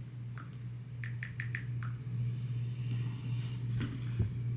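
Typing on a laptop keyboard: a quick run of about five light keystrokes about a second in, then a couple of sharper clicks near the end, over a steady low hum.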